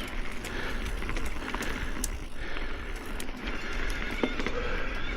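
Ibis Oso electric mountain bike riding over a rough dirt trail: tyres crunching over gravel and roots under a steady rush, with many sharp clicks and rattles from the bike.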